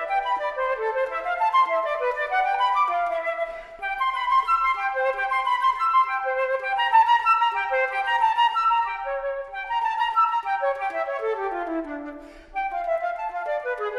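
Background music of woodwinds playing quick running phrases of short notes, with brief lulls about four seconds in and near the end.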